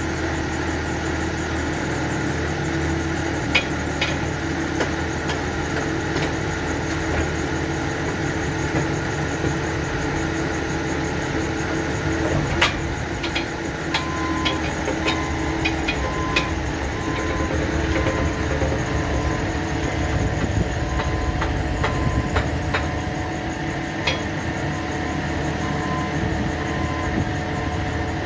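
Engine of a farm machine idling steadily, with a few sharp metallic clicks. From about halfway through, a faint short beep repeats at regular intervals.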